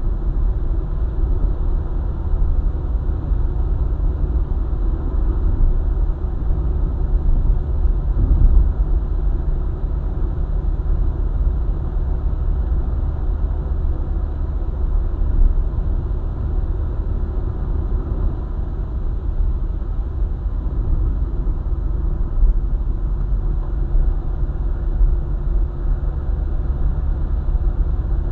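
Car travelling along a highway: a steady low rumble of engine and road noise that keeps an even level throughout.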